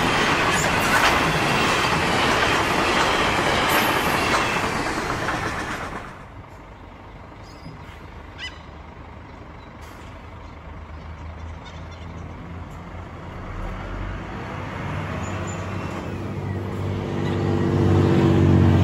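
Loaded grain hopper wagons of a freight train rolling past, a steady loud rumble that cuts off suddenly about six seconds in. Then quieter road traffic, with a low engine hum that grows louder toward the end as vehicles pass.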